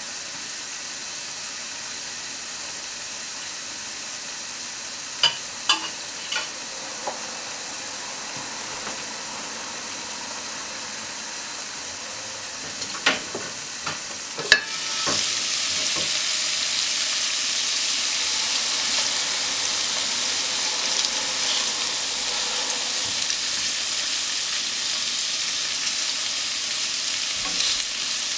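Pork-wrapped potato sticks frying in a covered frying pan: a steady, quieter hiss under the glass lid with a few light clicks. About halfway through the lid is lifted with a couple of clatters and the sizzle turns louder and brighter, with a few chopstick taps near the end.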